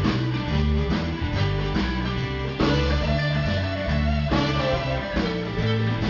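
Live band playing with electric guitars and a drum kit, over a low bass line and a steady beat.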